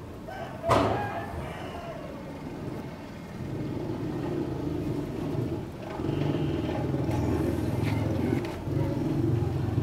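Low rumble of a motor vehicle engine running, getting louder about three and a half seconds in and again at six seconds, with a sharp knock under a second in.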